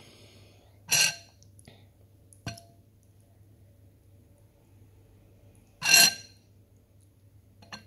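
Two short, ringing clinks of tableware knocked together, about a second in and again about six seconds in, with a lighter tap between.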